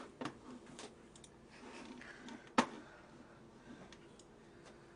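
A few faint scattered clicks and taps in a quiet room, with one sharper click about two and a half seconds in.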